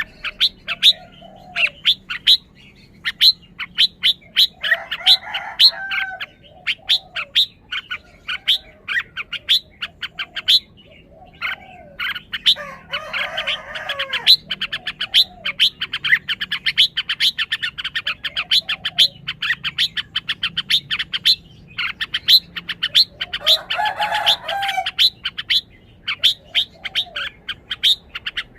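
Red-whiskered bulbul calling: a long run of short, sharp chirps that speed up to several a second at times, broken three times by a brief warbled song phrase.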